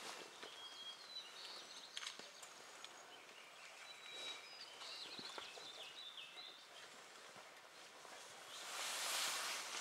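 Faint outdoor ambience around a grey wolf feeding on a carcass: a couple of soft single clicks, a few thin high whistled notes in the middle, and a swell of rushing noise near the end.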